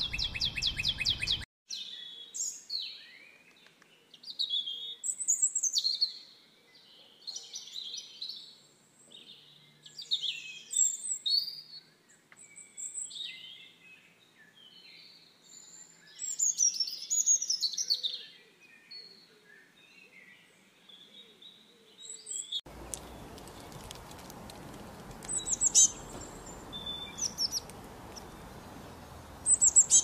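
European robin singing: short, high, warbling phrases separated by pauses, with a rapid trill at the very start. In the last several seconds the song gives way to a steady hiss with a few sharp chirps.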